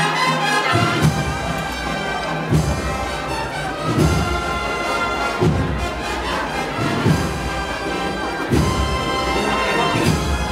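Agrupación musical, a Spanish procession band of cornets, trumpets and drums, playing a march: a held brass melody over a deep drum beat about every second and a half.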